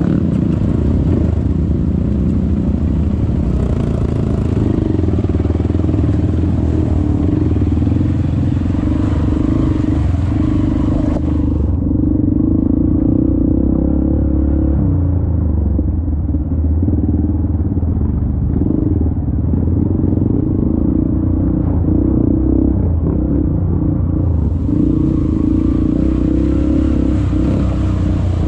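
Dirt bike engine running at steady low, slightly varying revs as the bike rides a muddy trail, heard close up from the bike itself. A hiss over the engine drops away for the middle part and comes back near the end.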